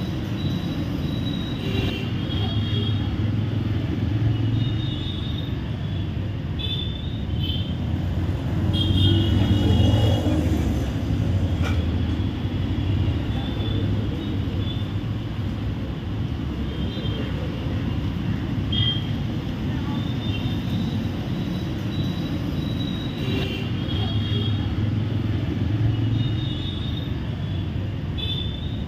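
Steady roadside traffic rumble with distant voices, and short high tones now and then.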